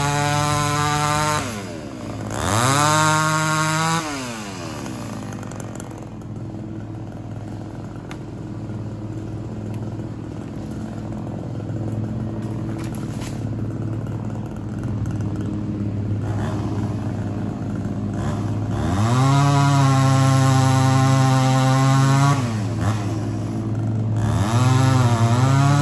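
Two-stroke chainsaw engine revved high, then dropping to a steady idle for about fifteen seconds before being revved up again twice toward the end.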